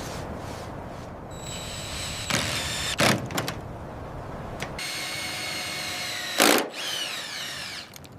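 A power drill running in two short bursts with a steady high whine, winding down after the second, mixed with a few sharp knocks.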